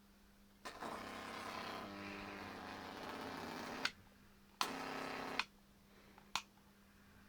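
High-voltage arcing from a microwave oven transformer wired as a stun gun: a loud buzzing arc of about three seconds, a second shorter arc about a second later, and a brief snap near the end. A steady low hum runs underneath between the arcs.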